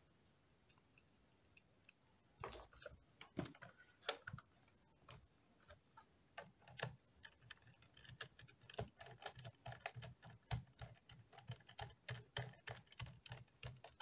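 Small precision screwdriver turning a screw into a laptop's plastic underside: faint irregular clicks and scrapes, with a few sharper ticks in the first few seconds. From about halfway on, a run of quick light taps and rubs as a hand handles the case, over a faint steady high whine.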